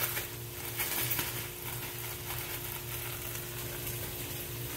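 Breaded zucchini fries frying in hot oil in a frying pan: a steady crackling sizzle with a few sharper pops about a second in.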